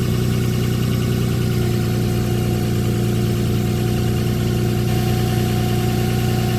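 2007 Nissan Pathfinder 4.0 V6 idling steadily, with a constant whine from its 5-speed automatic transmission. The owner traces the whine to the transmission and blames old transmission fluid rather than the timing chain.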